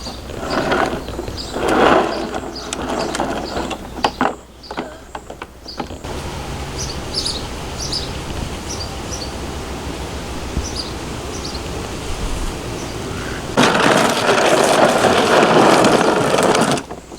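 Ride-on toy vehicle running, its drivetrain whirring and rattling mechanically, with a louder stretch near the end that stops abruptly.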